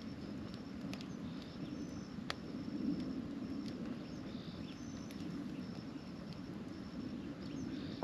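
Wood campfire burning in a stone fire ring, a steady low rush broken by a few sharp pops, with faint high chirping in the background.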